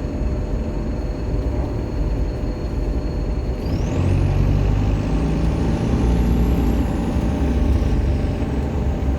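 Optare Solo bus's diesel engine with its turbocharger whining: a steady high whine, then about three and a half seconds in the engine pulls harder and the turbo whine climbs sharply in pitch, peaks and slowly falls away as the bus accelerates.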